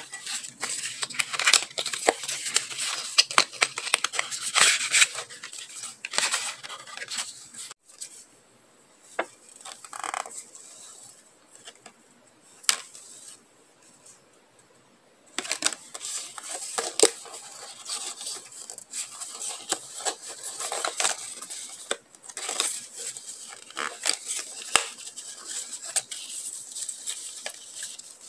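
Hands shuffling and handling stacks of paper bookmark cards and translucent cut-out frames: crisp papery rustles, flicks and light taps of card edges. The handling goes much quieter for several seconds in the middle, with only a few faint ticks, then becomes busy again.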